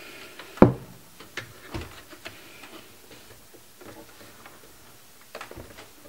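Plastic clicks and light knocks as a Corsair Dominator memory module is handled and seated in a motherboard DIMM slot. The sharpest click comes just over half a second in, followed by a few lighter ones and some faint ticks near the end.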